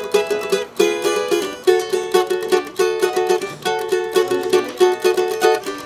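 Background music: a small plucked string instrument strumming chords in a quick, steady rhythm.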